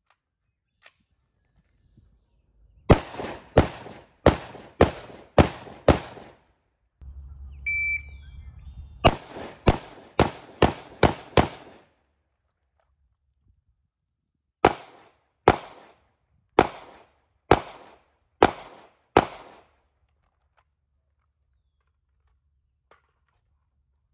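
Firearm shots in three strings of six: the first string about three seconds in, a quicker second string after a short high beep from a shot timer, and a slower third string, each shot a sharp crack with a short echoing tail.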